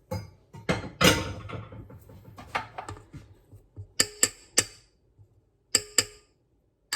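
Rubber spatula scraping the last melted chocolate out of a pot, then sharp knocks with a short ring: three quick ones, two more a second later, and one at the end, like the spatula and pot being knocked against the bowl rim.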